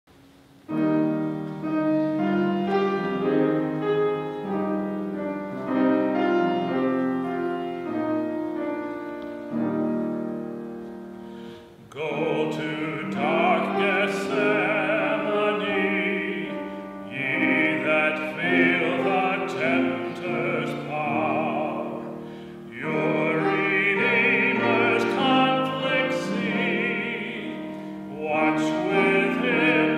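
Piano playing a slow introduction, then from about twelve seconds in a solo singer joins in classical style with a wide vibrato, accompanied by the piano.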